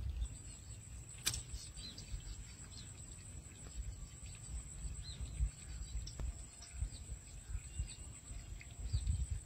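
Quiet outdoor ambience: faint bird chirps over a low wind rumble on the microphone, with a steady high-pitched tone and a single sharp click about a second in.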